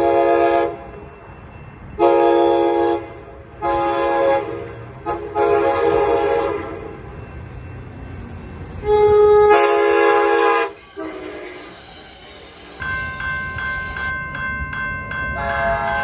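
Amtrak Surfliner cab car's air horn sounding a string of blasts, some about a second long and one of about two seconds, then two more short blasts after a pause. In the last few seconds a railroad crossing warning bell rings steadily in a quick repeating pattern, and the horn sounds again near the end.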